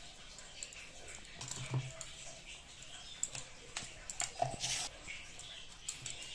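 Faint scattered clicks and light taps of a plastic spoon on a plastic plate and salt bowl as turmeric and salt are spooned onto raw prawns, with a short scraping hiss a little past halfway.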